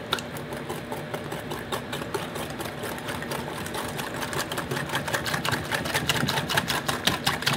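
Wire balloon whisk beating a thin custard mixture of egg, sugar, goat yogurt and vanilla in a ceramic bowl: rapid, even clicking and splashing as the wires strike the bowl, growing louder toward the end.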